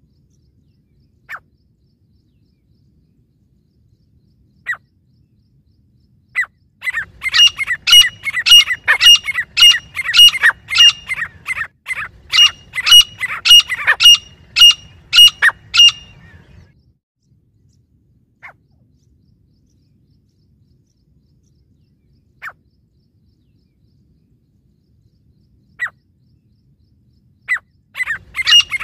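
A caged pair of grey francolins (teetar), male and female, calling. A few single sharp notes are followed by a loud run of rapidly repeated calls lasting about ten seconds. Scattered single notes come next, and another run of calls starts near the end.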